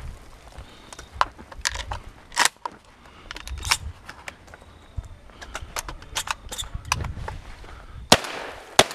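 Metallic clicks and clacks of a shotgun being handled and reloaded between strings of fire, then two loud shotgun shots in quick succession near the end.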